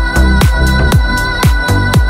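Electronic dance music with a steady kick drum beating about twice a second under held synth tones.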